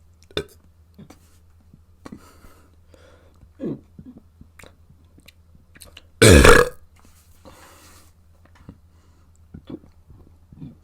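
A person burping: a short low burp about three and a half seconds in, then one loud burp about six seconds in that lasts about half a second, with small mouth clicks in between.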